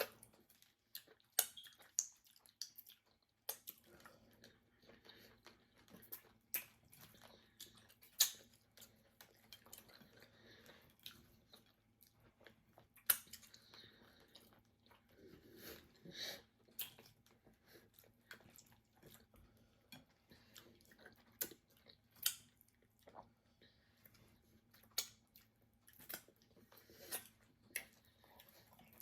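Close-up eating sounds of soft starch and white soup eaten by hand: chewing with irregular wet smacks and clicks of lips and fingers, a few of them much sharper than the rest. A faint steady hum joins about three and a half seconds in.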